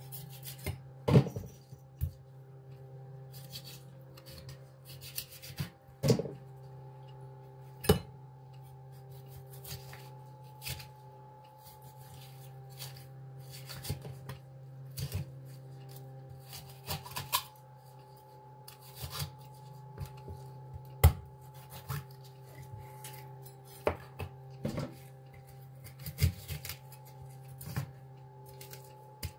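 Large kitchen knife cutting up a whole raw chicken: the blade saws through skin and joints and knocks irregularly on a plastic cutting board, a few strokes much louder than the rest. A steady low hum runs underneath.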